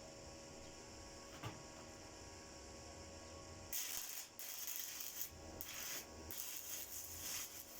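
Stick (shielded metal arc) welding with a 1/8-inch 7018 electrode on 1/2-inch steel plate: the arc strikes about four seconds in and runs with a hissing, frying crackle, broken by a few brief gaps. Before it there is only a steady hum.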